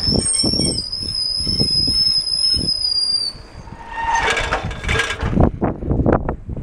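Bicycle brakes squealing: one long, steady, high-pitched whine for about three seconds. A shorter, rougher burst of noise follows about four seconds in, over low wind buffeting and road rumble on the microphone.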